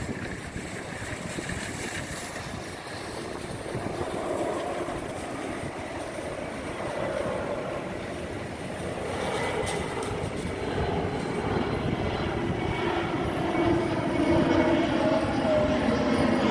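Airbus A321 with two CFM56-5B3/P turbofan engines on approach, its jet noise growing steadily louder as the airliner nears, with engine whine tones coming through in the last few seconds.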